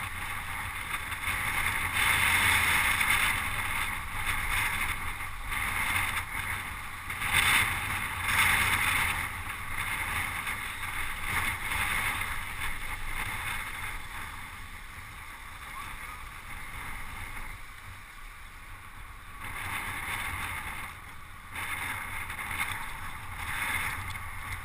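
Wind rushing over the microphone of a camera riding on a moving road bicycle: a steady, noisy rush with low rumble. It eases for several seconds past the middle, then picks up again.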